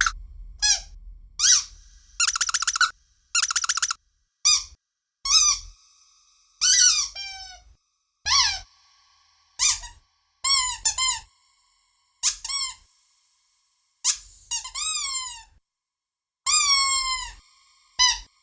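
A rubber squeaky dog toy squeezed again and again, over a dozen separate squeaks in an uneven rhythm. Some squeaks slide down in pitch as the toy is released, and a couple near the start are fast, fluttering squeaks.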